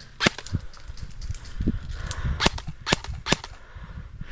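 Airsoft guns firing single semi-automatic shots as sharp cracks: one about a quarter second in, then a quick string of three about 0.4 s apart near the end.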